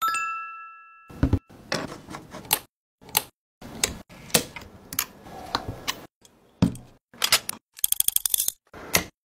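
Metal camera cage parts being handled and fitted together. A short metallic ring at the start, then a string of separate clicks, taps and knocks, and about eight seconds in a fast run of clicks as a quick-release clamp lever is worked.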